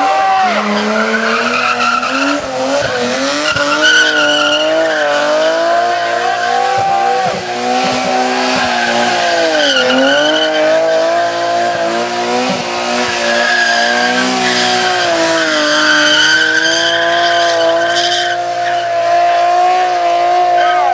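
A rally car's engine running hard, its revs climbing and dropping over and over with several deep dips as it is driven flat out on the hill-climb.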